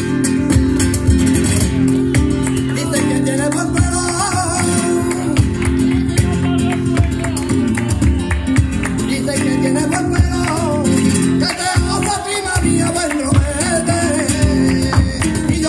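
Live flamenco alegrías: a singer's wavering, ornamented line over strummed flamenco guitar, with a dense run of percussive hits from cajón, hand-clapping (palmas) and the dancer's footwork.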